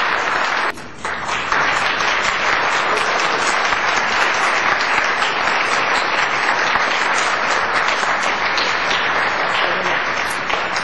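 Audience applauding steadily, with a brief drop in level about a second in.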